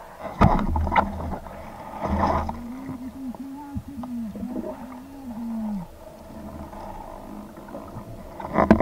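Underwater sound: sudden bursts of bubbles and splashing, then a muffled, wavering low hum for about three seconds, and more splashing near the end.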